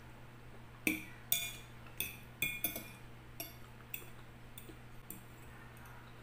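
Metal fork clinking and scraping against a clear glass bowl while spearing salad: about nine sharp, ringing taps over some four seconds, the first few loudest, then fainter.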